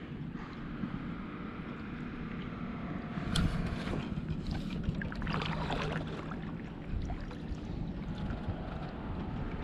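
Dolphins splashing at the surface as they chase bait fish close to a kayak. There is a sharp splash about three seconds in and a longer bout of splashing a couple of seconds later, over steady wind and lapping water.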